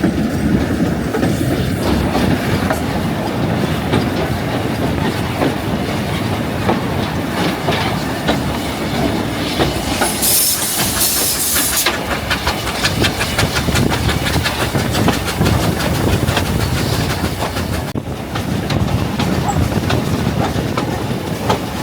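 Narrow-gauge heritage train running, a steady rumble with the clatter of wheels over the rails. A high hiss sounds for about two seconds about halfway through.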